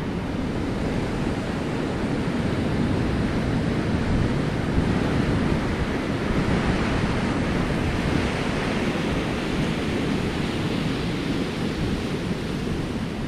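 Ocean surf breaking and washing over a rocky shore in a steady rush, swelling a little midway, with wind rumbling on the microphone.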